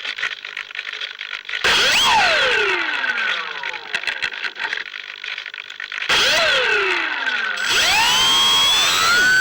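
Electric motor and propeller of a C1 Chaser RC model plane: two short throttle blips, about two and six seconds in, each spinning up sharply and then winding down. Near the end the motor spins up again and holds a high, steady whine.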